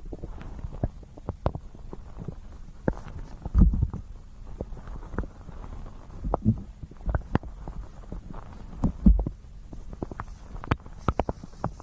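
A human stomach gurgling, recorded close up: irregular small pops and clicks with low rumbles, the strongest rumbles about four and nine seconds in.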